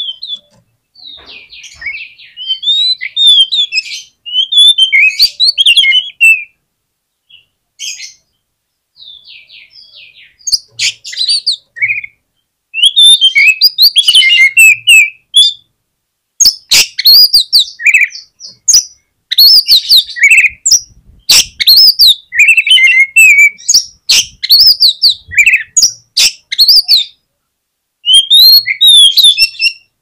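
Oriental magpie-robin (kacer) singing loudly in bursts of varied whistled and chirping phrases with short pauses between them. Over the second half the song turns busier, with sharp clicks mixed in among the phrases.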